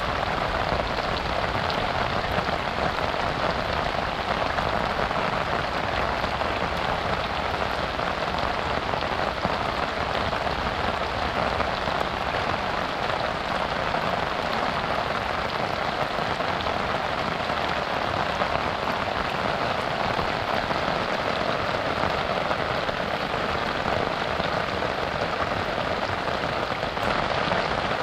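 Heavy rain falling steadily, an even dense hiss of drops that holds at the same level throughout.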